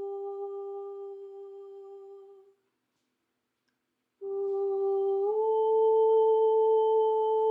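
A steady humming tone with a few overtones fades away over about two and a half seconds. After a second and a half of silence a tone starts again at the same pitch, steps up slightly about a second later, and holds.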